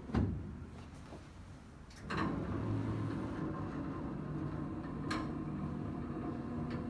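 A knock, then about two seconds in a chiropractic decompression table's motor starts and runs with a steady hum.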